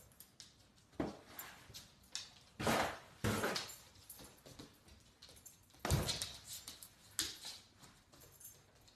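A dog with a cardboard box stuck on its head bumps about on a hard laminate floor, and the box knocks and scrapes several times, with light ticks between. The loudest knocks come about three seconds in and again about six seconds in.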